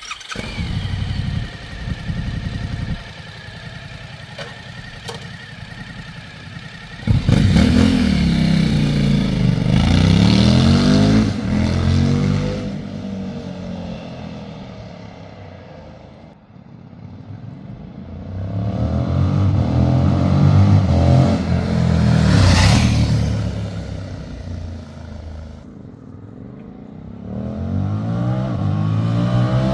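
Suzuki V-Strom 1050DE's V-twin engine through a Fuel Diablo slip-on exhaust, ridden past several times. Each pass swells as the bike accelerates by and the engine note sweeps up and falls away, with quieter gaps between passes.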